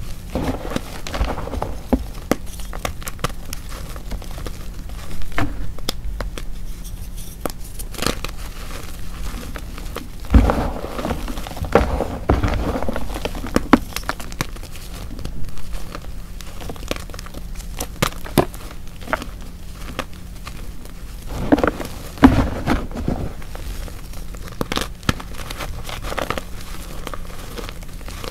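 Dried hearts of pressed Chalkness gym chalk being crushed and crumbled: dry crackling and crunching with many sharp snaps, and heavier crunches now and then.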